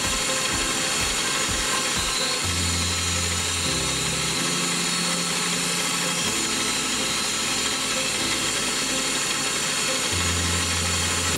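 Small milling machine running steadily while drilling holes in a metal part, under background music with low held notes.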